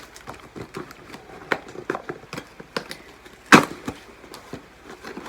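A cardboard box and its packaging being handled and opened by hand: scattered taps, clicks and scrapes, with one louder knock about three and a half seconds in.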